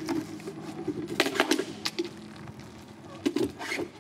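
A car tyre rolling over a ukulele and crushing it: sharp wooden cracks and snaps in three bursts, one at the start, one about a second in and one near the end.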